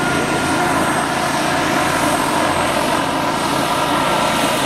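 Giant radio-controlled Kamov Ka-32 scale model helicopter with coaxial twin rotors in flight: a steady running sound of rotors and drive with a thin, steady high whine.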